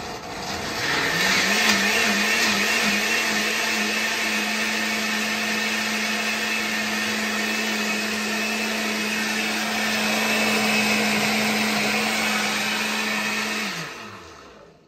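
Blender running, puréeing a batch of mole sauce. Its motor tone wavers as it gets going, then holds steady, and falls away as it winds down near the end.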